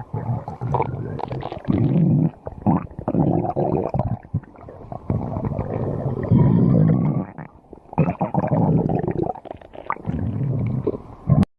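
Stomach growling: long, irregular gurgling rumbles that swell and fade with a couple of brief lulls, cutting off suddenly just before the end.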